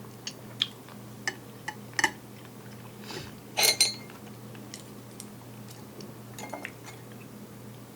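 Cutlery clinking and scraping against a dish while eating: several short clinks, with a louder, longer scrape a little past the middle. A faint steady hum runs underneath.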